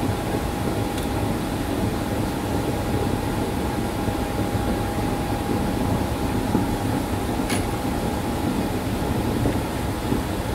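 Steady low rumbling background noise with a thin, faint steady hum running through it; one short click about three quarters of the way through.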